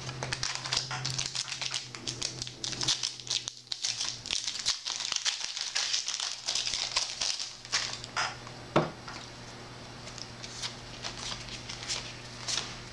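Crinkling of a Yu-Gi-Oh booster pack's foil wrapper and trading cards being handled, dense for the first eight seconds or so, then thinning to occasional soft clicks and rustles. A low steady hum runs underneath.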